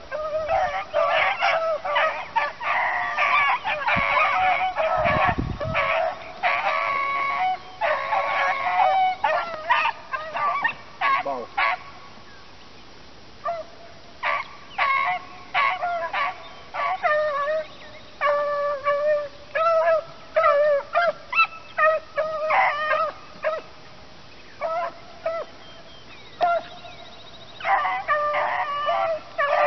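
A pack of beagles baying as they run a rabbit's track, many short yelping cries overlapping. The chorus thins to scattered cries about halfway through and swells again near the end.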